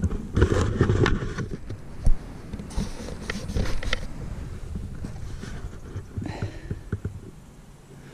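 Rustling, scraping and knocking handling noise as a hand-held camera is moved about and the foam-board model plane is handled, with a low rumble underneath. Sharp knocks come right at the start and about two seconds in.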